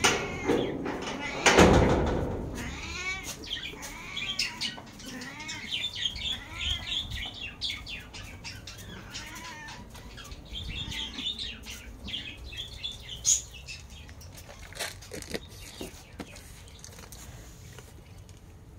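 Domestic cat meowing over and over, begging for food. A brief loud noise comes about a second and a half in.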